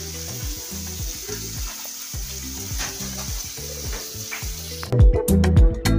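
Steady sizzle of frying over background music with a regular beat. About five seconds in, the sizzle cuts off abruptly and the music comes in loud.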